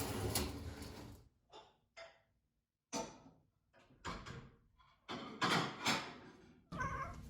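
Dishes and kitchen cupboards clattering and knocking as washed dishes are put away: a rush of noise in the first second, then a string of separate sharp knocks and clinks.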